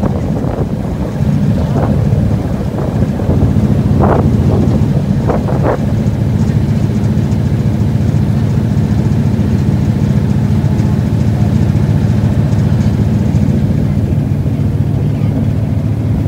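River cruise boat's engine running steadily with a low, even drone.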